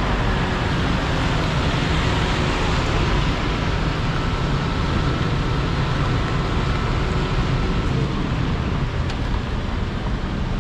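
Steady diesel rumble of the Volvo tracked excavator's engine mixed with road traffic noise from passing vehicles, running evenly with no distinct knocks or bangs.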